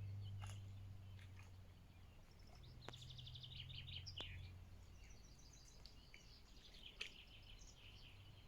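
Faint songbirds singing, with rapid trilled phrases about three seconds in and again near the end, over a low steady hum and a few sharp clicks.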